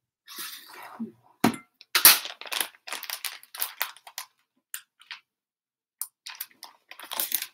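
A packet of ground white sesame seeds rustling and crinkling as it is handled and folded shut, in irregular bursts. A single sharp knock sounds about a second and a half in.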